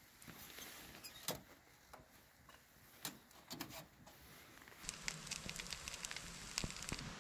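Faint scattered crackles and sharp clicks. They are sparse at first and thicken into denser crackling about five seconds in.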